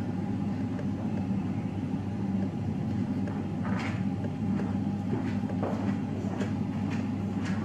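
A steady low background hum, with a few faint light clicks and scrapes from about halfway through as a silicone spatula stirs cookie dough in a stainless steel bowl.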